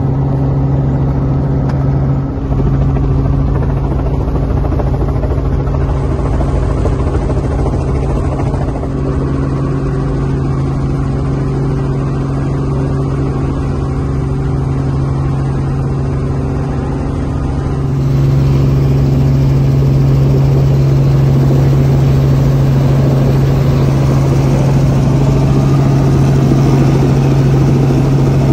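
Light helicopter's engine and rotor running steadily, heard from inside the cabin as a loud, even hum. It becomes louder about two-thirds of the way through.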